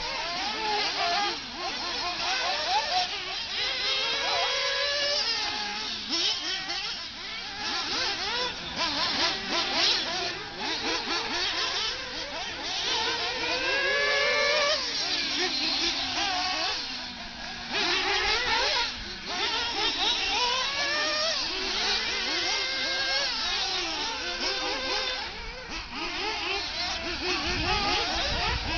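Several radio-controlled off-road buggies racing on a dirt track. Their motors rev up and down in many overlapping rising and falling pitches as the drivers throttle through the course.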